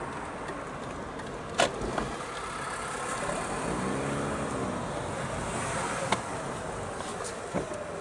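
Mazda RX-8's rotary engine running at low speed, with road and driving noise as the car rolls slowly along. Its pitch rises and falls once about halfway through, and there are two sharp clicks, one near the start and one past the middle.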